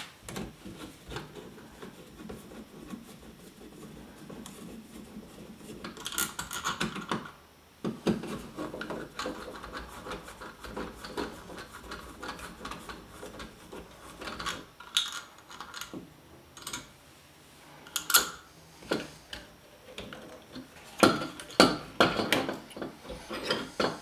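A screwdriver working at the mounting screws of a wall dimmer switch, with small metal clicks and scrapes, as the switch is loosened and pulled out of its electrical box. A longer scrape comes about six seconds in, and a cluster of sharper clicks comes near the end.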